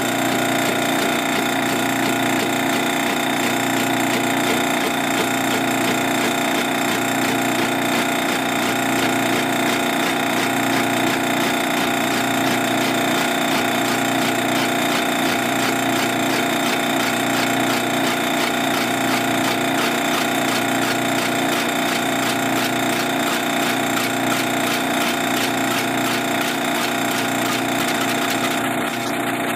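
Metal lathe running with a boring bar taking a taper cut across a spinning 16-inch-diameter wooden block: a steady cutting hiss over the lathe's motor and gear whine, with a faint slow regular pulse underneath.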